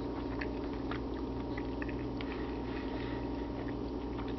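Steady low hum of kitchen room tone, with a few faint scattered ticks.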